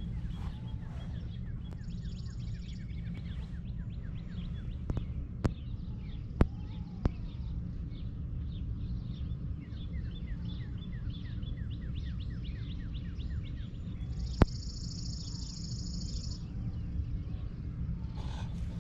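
Outdoor ambience: many birds chirping over a steady low rumble, with a buzzy high trill about two seconds in and again near the end, and a few sharp clicks.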